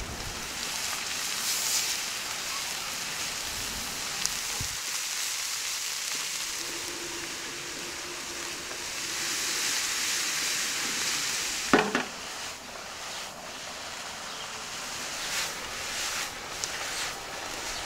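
Grated carrots and onions sizzling steadily in a hot frying pan as they are tipped in and stirred with a wooden spatula. One sharp knock about two-thirds through, with a few lighter clicks near the end.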